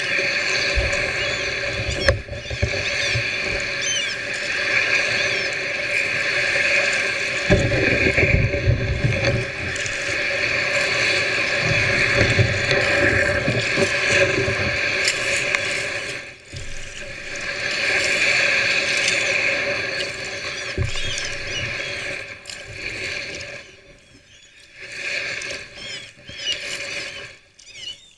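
Sea kayak hull scraping and squeaking as it grinds over seaweed and stones in very shallow water, with low knocks about a third of the way in. The scraping thins out and fades near the end.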